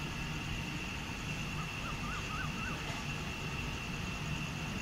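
Steady low rumble and hum of trains at a railway line, with a constant high whine over it. A few faint short chirps come about two seconds in.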